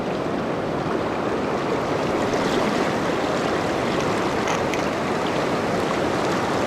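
Steady rush of a river's current flowing over rocks.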